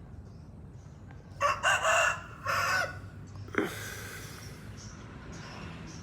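A rooster crows once, in three joined parts lasting about a second and a half, starting about a second and a half in. A short sharp sound sliding steeply down in pitch follows about two seconds later.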